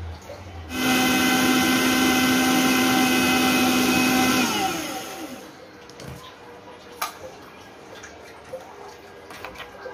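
Electric mixer grinder blending mayonnaise in its steel jar, running at a steady pitch for about four seconds, then winding down with a falling whine once switched off. A sharp click and light spoon scrapes against the steel jar follow.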